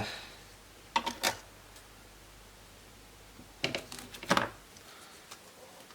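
Hard clicks and clatters of laptop parts being handled during disassembly: a short cluster about a second in and another near four seconds, over a faint low hum.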